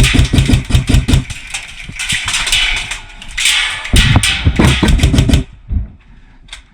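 Airsoft gun firing two rapid full-auto bursts, one at the start lasting about a second and another about four seconds in, each a fast string of sharp cracks.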